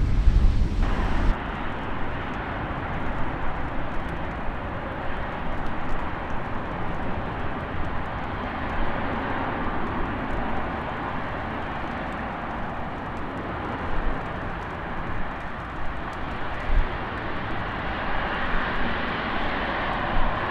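Boeing 777 freighter's GE90 jet engines running at a distance: a steady rush that grows a little brighter near the end. For about the first second, wind buffets the microphone, with a low rumble.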